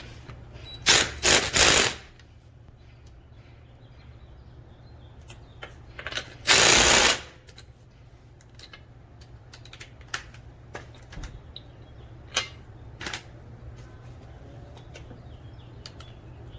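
DeWalt 20V MAX cordless impact wrench hammering on car lug nuts in short bursts: three quick bursts about a second in, then one longer burst of about a second a few seconds later. Light clicks and knocks between the bursts.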